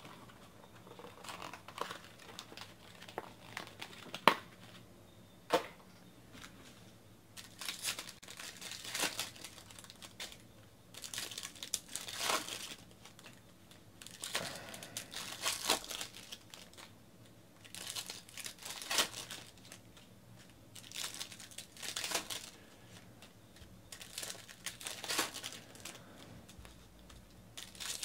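Baseball card pack wrappers being torn open and crinkled by hand, in repeated bursts every few seconds, with a couple of sharp clicks about four and five and a half seconds in.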